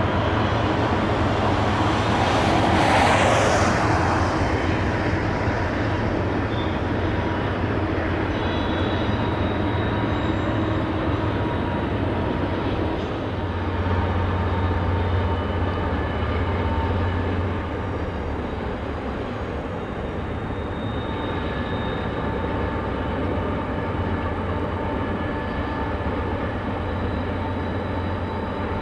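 Long CP freight train rolling past: freight cars' steel wheels running over the rails in a steady rumble, with faint high whining tones coming and going and a brief louder rush about three seconds in.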